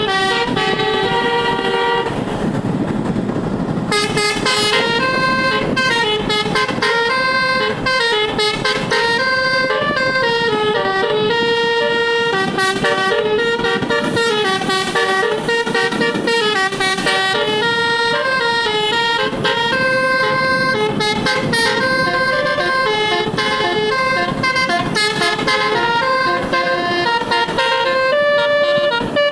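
A bus's telolet horn, a set of multi-tone air horns, playing a continuous stepping melody with all its tones in use. There is a short break about two seconds in, then the melody runs on. Engine and road noise sit underneath.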